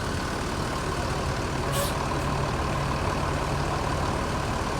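Diesel bus engine running with a steady low rumble, and a brief air-brake hiss about two seconds in.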